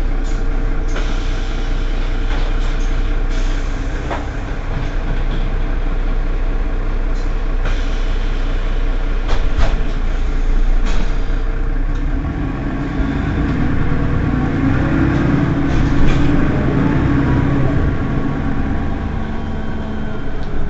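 Mercedes-Benz Citaro city bus's engine running steadily at a standstill, with a few short clicks. About twelve seconds in, a deeper, fuller rumble builds up.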